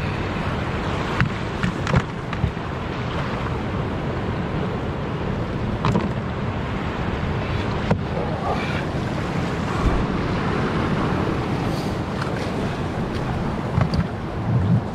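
Steady wash of ocean surf with wind buffeting the microphone, broken by occasional short, sharp knocks.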